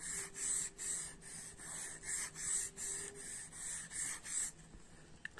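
Pencil strokes on paper as a star is sketched: about two quick hissy scrapes a second, stopping about four and a half seconds in.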